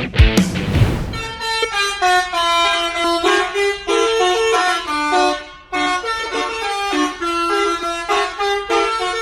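Bus telolet horn, a set of multi-tone air horns, playing a quick melody note after note, with a short break a little before halfway. Loud rock music with drum hits sounds for about the first second before the horn tune.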